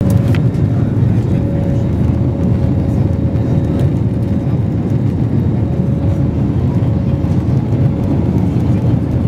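Steady cabin noise inside an Airbus A321-200 climbing out after take-off: the jet engines and rushing airflow give a deep, even roar, with a faint whine that comes and goes.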